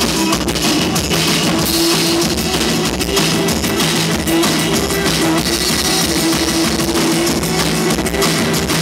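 Live rock band playing loud: a drum kit with frequent drum and cymbal hits over steady held notes.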